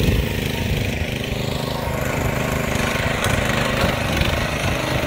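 Small gasoline engine of a Yardmax tracked power barrow running steadily as the machine drives along under a load of concrete blocks.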